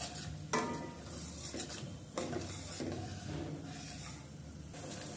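Ground onion paste sizzling in hot oil in a stainless steel kadhai while a steel ladle stirs and scrapes it around the pan. This is the onion being fried for a tadka.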